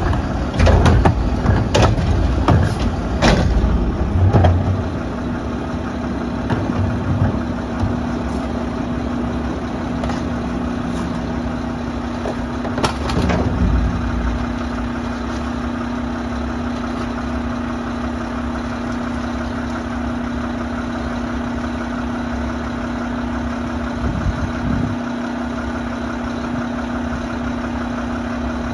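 A quick series of loud metal clanks and bangs in the first few seconds. Then the Mack LR garbage truck's engine runs steadily with a constant hum, with one more clank about 13 seconds in.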